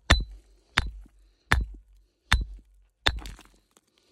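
Steel rock hammer striking a quartz rock to break it open: five sharp blows about three-quarters of a second apart, with a brief metallic ring.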